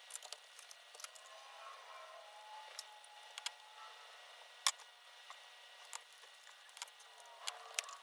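Sped-up workshop sound of tools and small parts being handled on an opened Pfaff Performance Icon computerized sewing machine during servicing: scattered quick clicks and taps, the sharpest a little under five seconds in. Faint wavering tones come and go in between.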